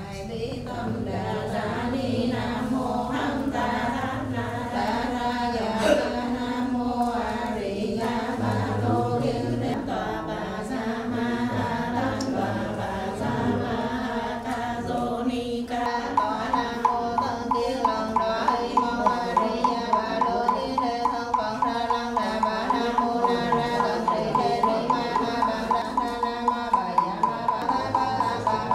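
Music with a chanted or sung melodic line. About halfway through, a fast, even tapping of a small struck percussion instrument joins in at roughly three strikes a second.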